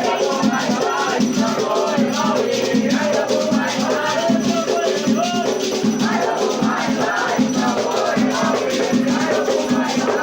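Afro-Brazilian Batuque ritual song: voices singing over a steady, even rhythm of shaken rattles and drums.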